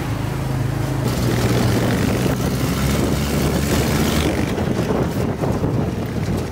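Quad bike engines running steadily, with a change about a second in.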